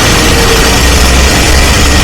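Heavy construction machinery engine running steadily under a loud, even noise.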